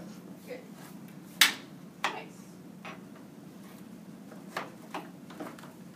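A kitchen knife knocking against a cutting board as carrots are diced: a few sharp, irregularly spaced strikes, the loudest about a second and a half in.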